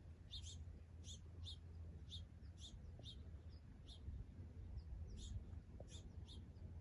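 A small bird chirping over and over, short high notes about two a second, faint over a low steady rumble.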